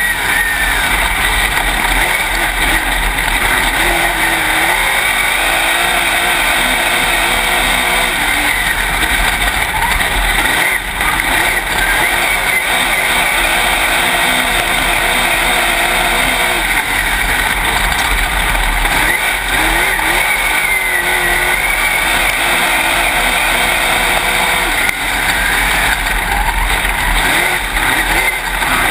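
Dirt late model race car's V8 engine at racing speed, heard from inside the cockpit, its pitch rising and falling as the car goes around the track. The engine drops off briefly twice, about eleven seconds in and again near twenty-five seconds.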